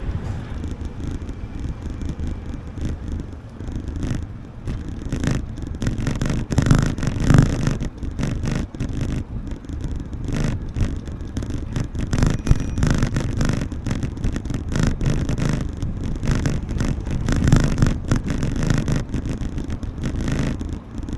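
Low rumble of city street traffic, mixed with irregular wind buffeting and rustling on an action camera's microphone.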